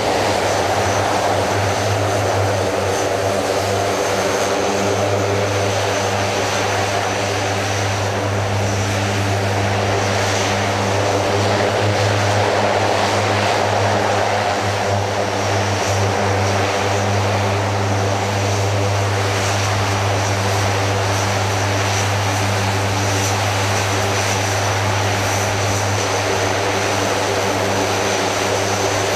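Four Rolls-Royce AE 2100 turboprop engines of a C-130J-30 Super Hercules running on the ground, their six-bladed propellers making a loud, steady low drone with a thin high turbine whine above it.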